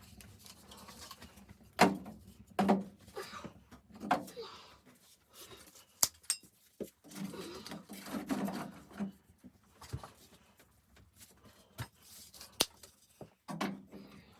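A series of irregular knocks and clicks with rustling between them: objects being handled and set down.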